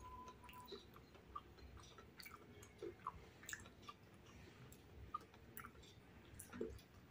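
Faint chewing of crispy fried meatball-stuffed tofu (tahu bakso) with rice, with scattered small wet mouth clicks.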